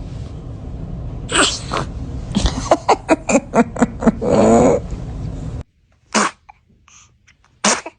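A baby sneezing in short, sharp bursts: one sneeze about a second and a half in, then a quick run of little sneezes ending in a brief voiced cry. The background hiss drops out about two-thirds in, and two more short sneezes follow.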